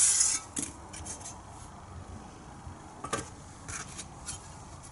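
Scotch-Brite pad scuffing a new steel body panel to give the primer a key, stopping about a third of a second in. Then a few light knocks and scrapes of sheet-metal panels being set down and handled on the workbench, the clearest about three seconds in.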